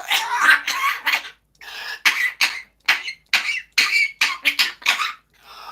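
Pet parrot imitating a coughing, choking fit: about a dozen short, raspy coughs and hacks in quick succession.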